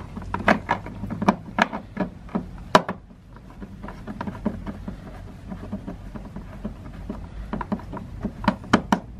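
Irregular sharp clicks and taps of hard plastic as fingers grip and work the fog-light grille trim on a car's front bumper, feeling for its retaining clips. The clicks come thick and loud at first, thin out in the middle, and a few sharp ones return near the end.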